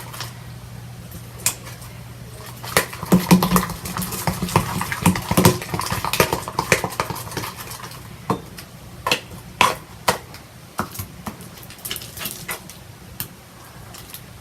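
Freshly made slime being stretched and worked by hand: irregular sticky clicks and taps, busiest a few seconds in and thinning out toward the end.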